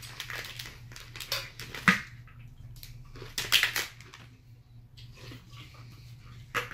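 Plastic snack wrapper crinkling and rustling in short irregular bursts, with a sharp click about two seconds in.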